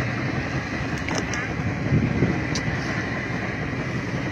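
Steady low noise aboard a small fishing boat at sea, with a few faint clicks.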